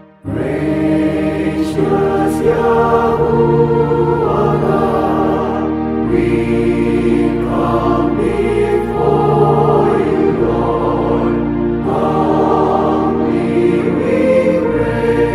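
A choir singing a hymn over sustained instrumental accompaniment. The voices come in just after a brief drop in level at the start.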